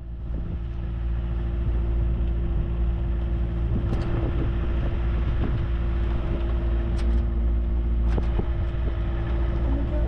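A boat's engine running steadily under way, a constant hum over a heavy low rumble, fading in at the start.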